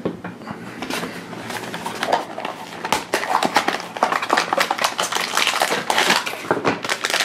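A small cardboard blind box being handled and opened by hand: a rapid run of small clicks, scrapes and crackles as the card flaps are pried open.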